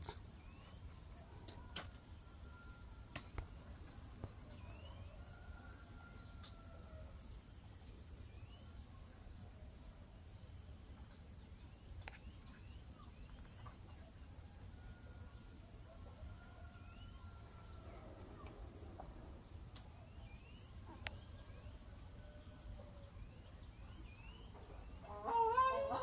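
Steady high-pitched insect trilling, with faint, distant calls of grey crowned cranes a few times and small scattered bird chirps.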